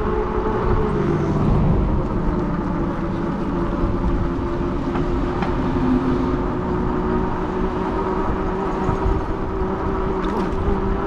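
Fat-tire e-bike under way: a steady hum from the drive and from the Shinko 244 motorcycle rear tire rolling on the road, over a low rumble.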